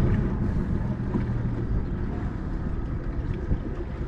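Boat engine running steadily under way, with wind on the microphone.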